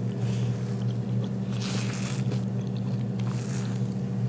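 Steady low mechanical hum of a few fixed pitches. Soft scrapes of forks on plates come about two seconds in and again near the end.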